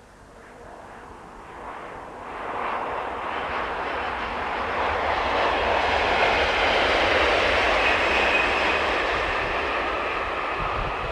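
Bombardier Regina electric multiple-unit train approaching and running past, its running noise building over several seconds to its loudest about two-thirds of the way in, then easing slightly.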